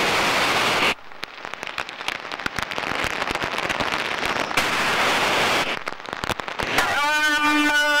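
A scuba diver breathing through a regulator underwater: long hissing bursts of exhaled bubbles that stop and start abruptly, with clicking and crackling between breaths and a brief pitched hum near the end.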